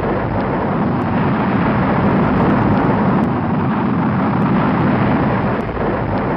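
Sound effect of a spaceship's engine: a steady, loud rushing rumble, heaviest in the low range.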